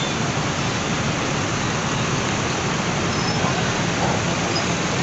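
Bus engines running at idle in a crowded bus terminal: a steady, even rumble with a hiss over it.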